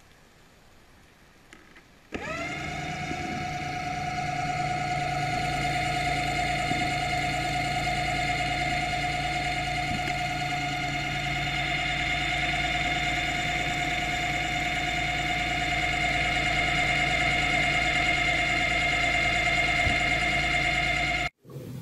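Underwater scooter's electric motor whining steadily. It starts about two seconds in with a quick rise in pitch as it spins up, holds a high whine, and cuts off abruptly near the end.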